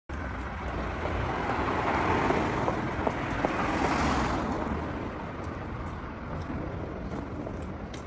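Street traffic: a passing car's noise swells to a peak about four seconds in and then fades, over a steady low traffic rumble.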